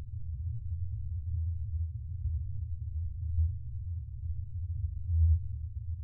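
Spaceship ambience sound effect: a steady, deep engine-room hum with nothing above the low bass. It wavers slightly and swells briefly twice, once mid-way and once about five seconds in.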